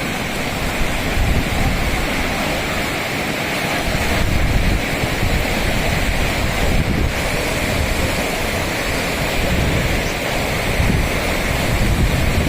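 Rushing mountain stream of snowmelt, a steady loud rush of water, with wind buffeting the microphone in low gusts.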